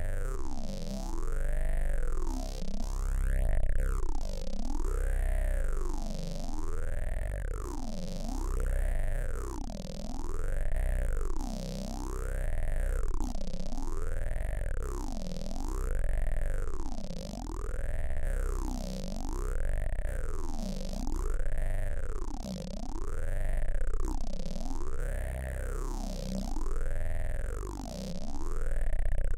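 Synthesized electronic noise from AudioMulch modular software: a sweeping sound that rises and falls in a steady cycle, about once every second and a half, over a deep low drone. It is more jumbled for the first few seconds before settling into the regular cycle.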